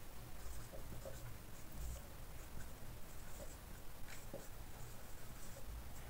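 Faint strokes of a marker pen writing on a whiteboard.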